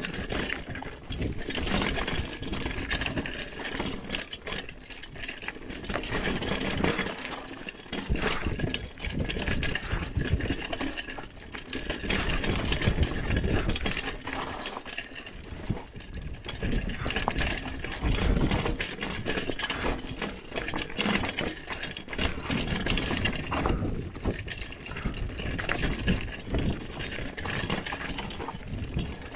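Hardtail mountain bike rattling down a rough dirt trail: a constant clatter of chain and frame knocks with rapid, irregular clicks over the rush of tyres on dirt.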